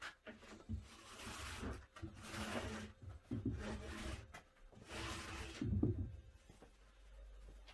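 Hand-held Virutex double edge trimmer scraping along a furniture-board panel edge, shaving the overhang off pre-glued iron-on veneer edging tape. About four scraping strokes, each under a second.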